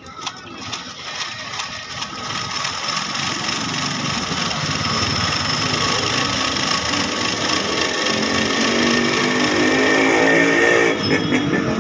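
Motorised sewing machine stitching cloth, running steadily and growing louder over the first several seconds.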